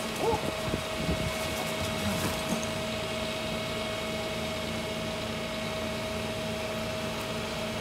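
Truck-mounted dumpster grinder running, a steady hum with a constant whine held throughout, with a few knocks in the first couple of seconds.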